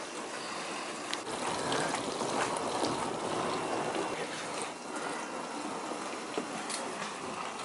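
Newly installed Frigidaire Gallery dishwasher running a cycle, water rushing steadily inside the tub, with a few light clicks.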